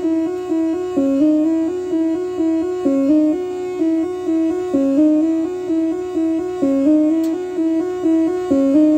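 Synthesizer sequence playing a looping arpeggio of electric-piano-like notes, each note dying away quickly, the same short phrase repeating about every two seconds.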